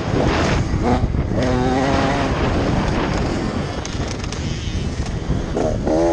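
Dirt bike engine revving up and down on a motocross track, the pitch rising and falling with the throttle and climbing strongly near the end, over heavy wind rumble on the onboard microphone.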